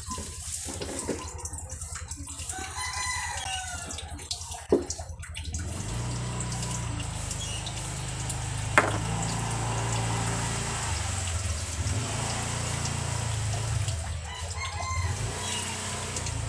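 A rooster crowing once, about three seconds in. Two sharp clicks follow, and from about halfway a steady low hum sets in.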